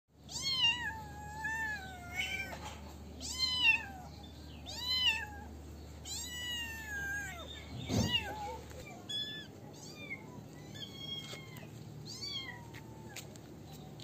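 Kitten meowing over and over: high-pitched cries that rise and fall, roughly one every second or so. A short thump comes about eight seconds in, and the calls after it are fainter.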